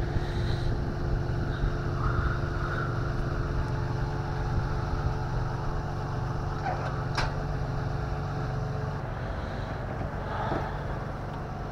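Tow truck engine idling with a steady low rumble and an even hum over it that stops about nine seconds in; one short click partway through.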